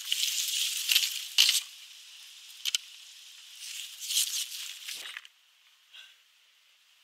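Footsteps rustling through dry fallen leaves on grass in uneven bursts, with a few sharp clicks. The sound cuts off abruptly about five seconds in, leaving near silence.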